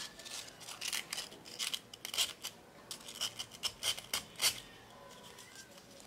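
Sandpaper rubbed back and forth along a thin wire, making quick, uneven scratchy strokes that stop about four and a half seconds in.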